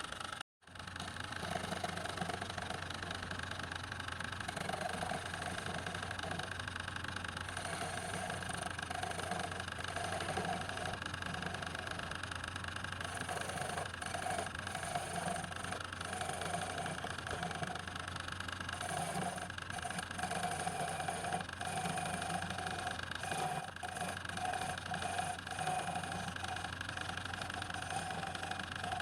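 Woodturning lathe running with a steady motor hum, with an irregular pulsing sound on top as the work turns. The sound drops out briefly about half a second in.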